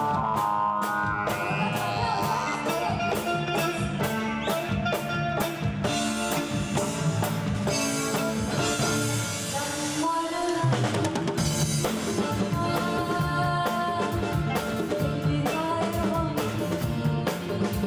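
Live band playing, driven by a Pearl drum kit keeping a steady beat with evenly spaced cymbal strokes over chords and bass. The low end drops out briefly about ten seconds in, then the band comes back in.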